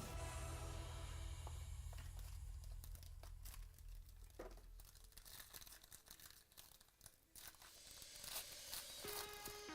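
Trading-card box packaging being torn open and crinkled: irregular sharp tearing and rustling. Background music fades out in the first few seconds and comes back near the end.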